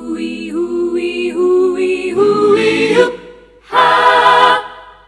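Wordless a cappella vocal harmony: layered voices singing held chords that shift in pitch, then a short final chord about four seconds in that dies away.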